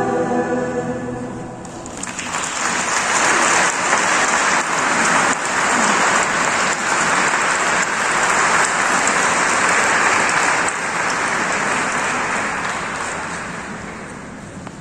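A choir's final held chord dies away, then a large congregation breaks into applause that carries on for several seconds and slowly fades near the end.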